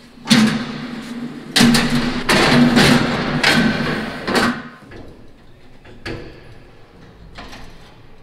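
Metal clanking and rattling as a combine's folding steel access ladder is pulled down and swung out, for about four and a half seconds, followed by a few faint knocks.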